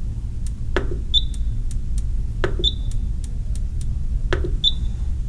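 Rain Master Eagle Plus irrigation controller's press-and-turn dial being pressed three times, each click followed a moment later by a short high beep from the controller as the digits of the access code are entered.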